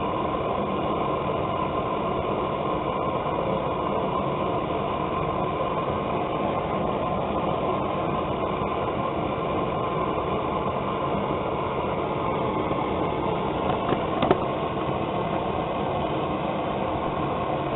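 Propane burner firing into a small coffee-can forge: a steady rushing hiss as a knife blade heats toward non-magnetic, about 1500 degrees, for hardening. One brief click about fourteen seconds in.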